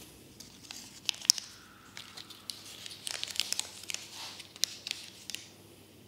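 Thin packaging crinkling and tearing, with scattered sharp ticks and the loudest tick about a second in.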